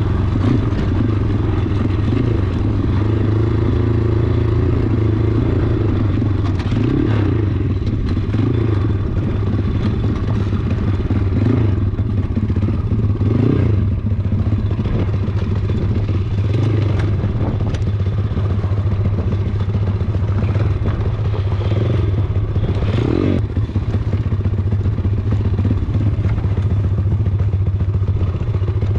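Four-stroke pit bike engine running at a fairly steady pitch as the bike is ridden over a rough dirt trail, with knocks and rattles from the bike over bumps now and then.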